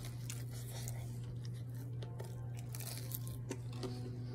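Crispy breaded fried chicken being bitten and chewed close to the microphone: scattered crunching and tearing of the breading, over a steady low hum.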